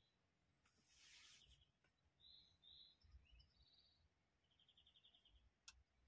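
Near silence, with faint bird chirps and quick trills in the background and one sharp click near the end.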